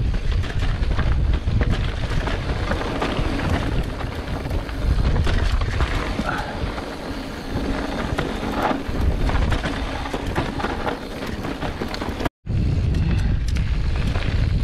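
Mountain bike riding down rocky desert singletrack: wind buffeting the microphone with a heavy low rumble, tyres crunching over gravel and rock, and the bike rattling with many short clicks over the bumps. The sound drops out for a split second about twelve seconds in.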